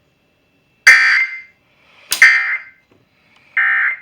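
Three short bursts of Emergency Alert System digital data tones, about a second apart, heard over broadcast radio. These are the end-of-message code that closes the weather alert.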